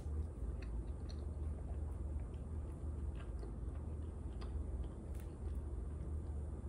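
A person biting and chewing a sauced chicken wing close to the microphone: scattered small wet clicks and smacks over a steady low hum.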